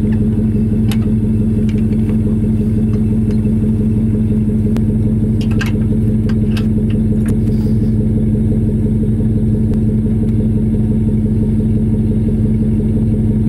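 Pickup truck engine idling steadily close by, with a few light metallic clinks as the trailer's safety chains are handled at the hitch.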